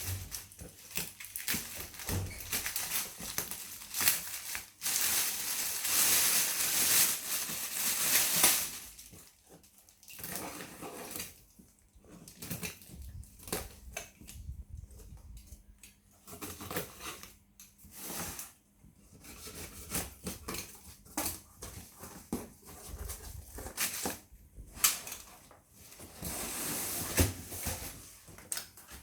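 Packaging being handled and opened by hand: rustling and tearing of wrapping with scattered clicks and knocks. The rustling is loudest for a few seconds starting about five seconds in.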